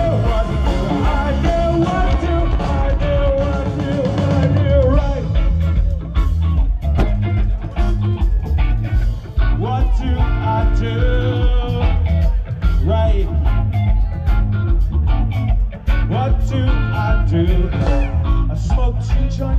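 Live rock band playing loudly through an outdoor festival PA, with a steady heavy beat.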